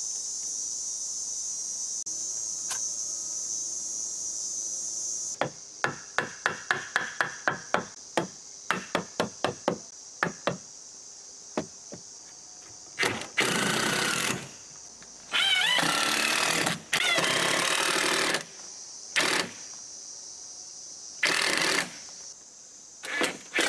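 Cordless impact driver driving screws into a wooden bracket in several bursts of one to two seconds, each a dense, loud hammering run. Before the bursts, a quick run of light knocks; at the start, a steady high insect drone.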